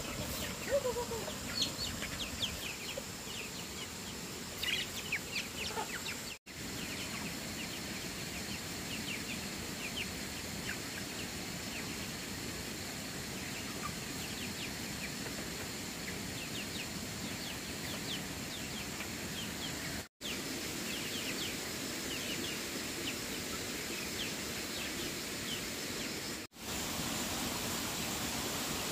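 Chickens clucking, with many short high chirps over a steady high-pitched hum; the sound cuts out abruptly three times.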